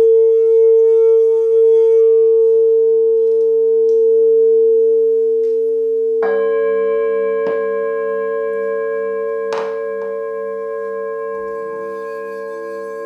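Frosted quartz crystal singing bowls ringing in long steady tones. Another bowl is struck about six seconds in, adding new lower and higher tones, with two sharp clicks of the mallet after it. Near the end a further bowl starts to sound with a slow wavering pulse.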